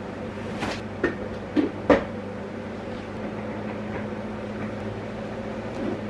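Coffee and milk poured into a ceramic mug from a glass carafe and a plastic jug, with a few sharp clinks and knocks of carafe and mug in the first two seconds, the last one loudest, over a steady low appliance hum.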